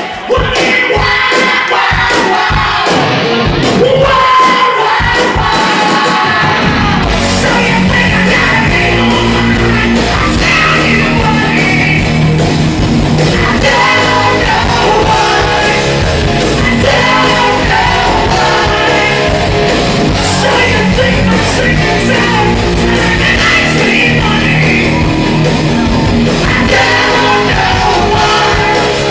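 A live rock band plays with a lead singer: electric guitars, bass, keyboards and drums. The song starts sparse, and the full band with bass and cymbals comes in about seven seconds in.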